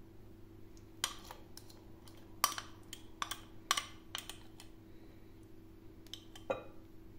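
A metal spoon scraping thick cake batter out of a glass mixing bowl, its edge clicking against the glass a dozen or so times at uneven intervals, over a faint steady hum.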